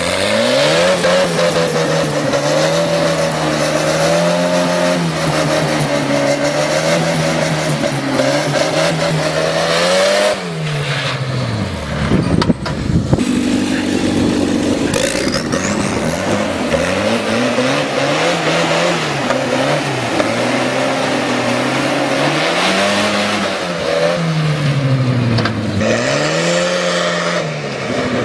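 Old tractor's engine running hard as it is driven along, its pitch holding high and then dipping and rising again several times as the throttle eases off and opens up.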